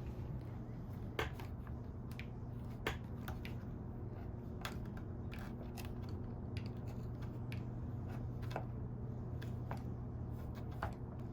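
Scattered small clicks and taps of hand work on a window screen frame, the screen and its spline being pressed in with a screwdriver, over a steady low hum.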